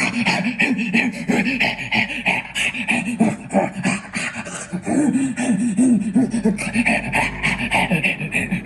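A soundbar playing a demo sound-effects track: a loud, fast run of rhythmic breathy pulses, several a second, with a wavering low tone underneath.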